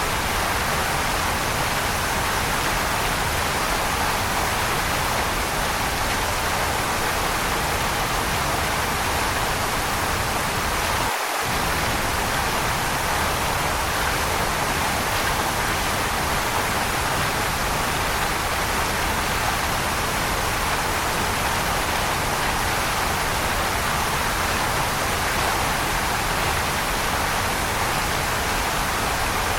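Waterfall rushing steadily, an even hiss of falling water with no changes, save a momentary drop in its low rumble about eleven seconds in.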